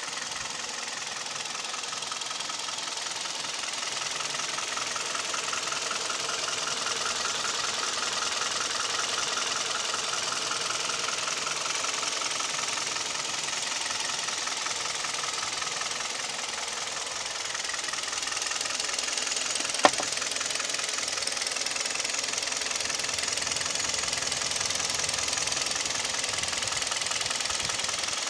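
Hyundai/Kia G4KD Theta II 2.0-litre four-cylinder petrol engine running with a steady, rapid knock, the piston knock that is this engine's known complaint. One sharp click about twenty seconds in.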